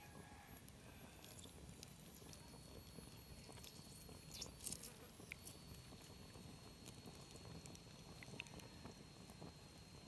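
Near silence: faint outdoor background with a thin steady high tone and a few light clicks, the sharpest a little before halfway.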